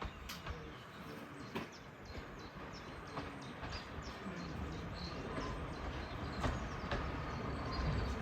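A train on the line: a low rumble that builds toward the end, with a few scattered sharp clicks.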